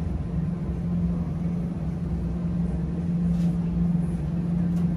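Steady low mechanical hum with a low rumble underneath, as from supermarket refrigerated display cases, with a faint tick or two near the end.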